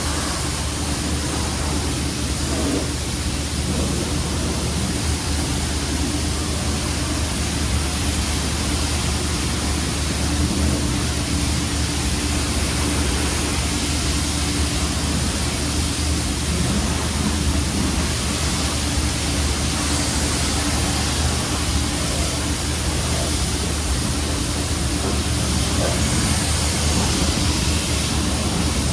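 Steady road, tyre and engine noise of a car being driven, an even rush with a low hum underneath and no change in pace.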